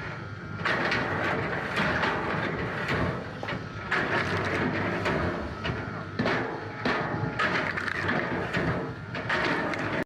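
Wood processing machinery running under load, with repeated sharp cracks and knocks about once a second over a steady mechanical noise.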